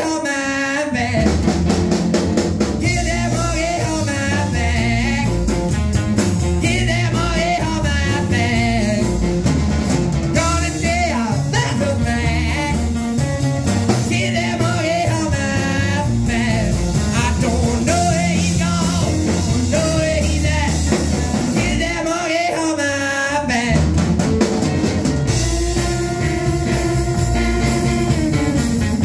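Live rockabilly band playing: a man singing with a wavering voice over a hollow-body electric guitar, upright bass and drum kit.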